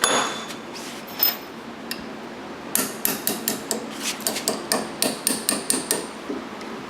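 Metal-on-metal work at a bench vise as the door lock solenoid is set in aluminum jaws. A sharp clank rings briefly, another follows about a second later, then comes a quick run of light metallic taps, about four a second, for some three seconds.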